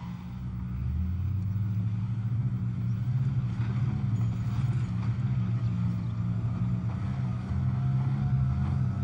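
Panhard ERC 90 Sagaie six-wheeled armoured car driving over a dirt track, its engine running steadily with a low hum that grows louder about a second in. A thin whine rides above it from about four seconds in.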